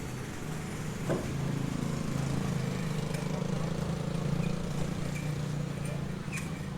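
An engine running steadily with a low hum, and a single sharp knock about a second in.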